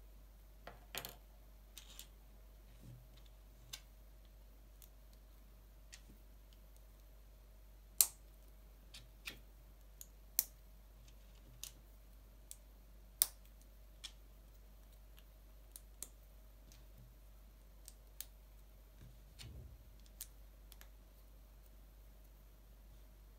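Small LEGO plastic pieces being handled, pressed together and set down: scattered sharp clicks and taps at irregular intervals, a few noticeably louder snaps among them.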